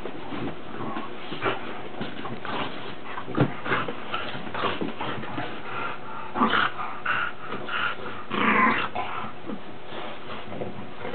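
Two bulldogs play-wrestling, making short, irregular dog vocal noises; the loudest and longest comes about eight and a half seconds in.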